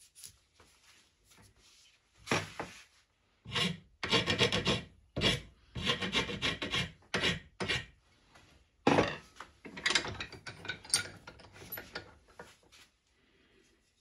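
Metal hand file rasping at the end of a wooden knife-handle block clamped in a vise: a run of scraping strokes that starts about two seconds in and stops about a second before the end.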